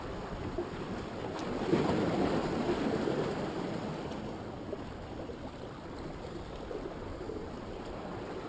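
Ocean surf washing on the beach, swelling louder about two seconds in and then easing off.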